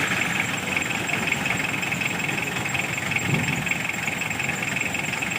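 Engine running steadily at idle.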